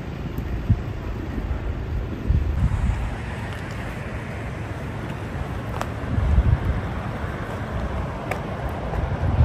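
Wind buffeting the microphone, an uneven low rumble that swells in gusts, strongest about two and a half seconds in and again around six seconds.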